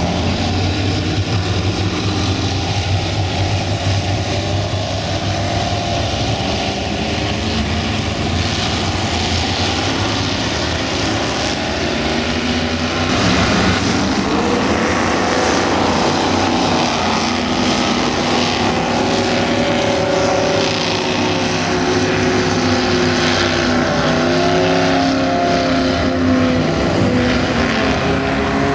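Several offshore powerboats' engines running loud and hard as the boats accelerate away, many engines overlapping. From about halfway through, a few engine tones waver and rise as boats pass close.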